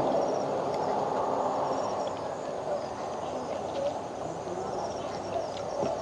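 Insects chirping in short trains of rapid, evenly spaced pulses, heard a few times over a steady background hiss and murmur.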